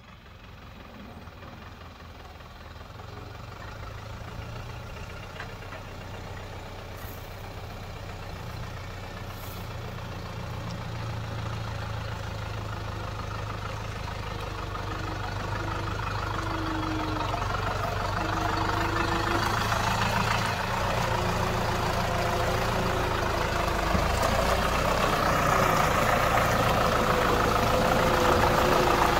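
Same Argon 80 tractor's diesel engine running steadily, growing louder throughout.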